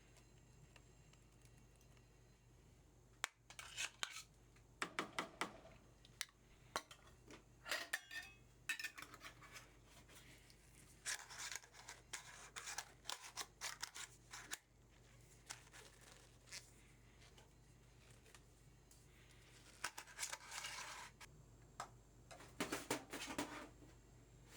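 Kitchen handling sounds: irregular bursts of clicks and short scraping noises from utensils at work, separated by pauses, starting about three seconds in.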